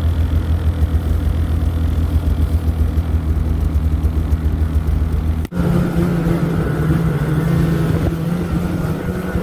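Snowmobile engine idling steadily. About halfway through, a sudden cut gives way to a snowmobile engine running at higher revs under way.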